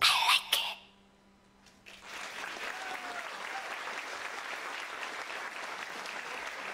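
Dance music ends, a brief silence, then an audience applauds steadily.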